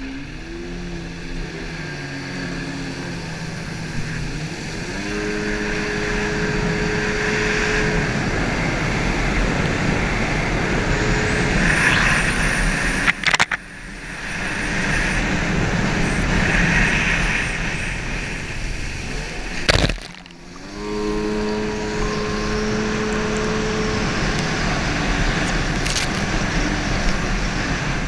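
Stand-up jet ski engine running hard at speed, its pitch climbing as it accelerates, under the rush of wind and water spray. The sound drops out briefly twice and picks up again.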